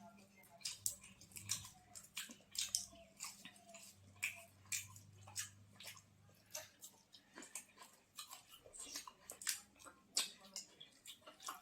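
People eating puri and chole, chewing and smacking their lips in a run of irregular wet clicks and crunches. A low steady hum runs underneath.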